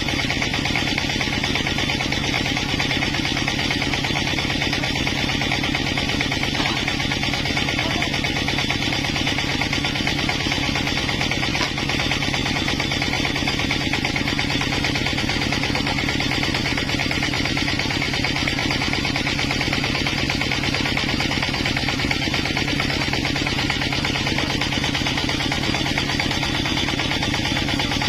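A sawmill's engine running steadily at an even speed, a low, constant running sound with no change in load.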